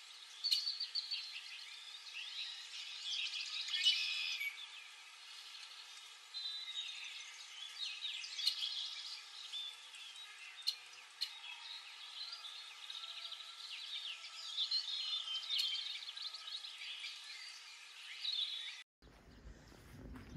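Several songbirds singing at once, a busy chorus of chirps and trills, which cuts off abruptly near the end.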